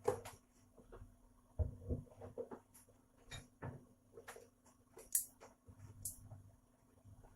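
Light kitchen handling noises as cooking oil is added to a frying pan: scattered soft knocks and clicks of a bottle and pan being handled, with a few sharper taps.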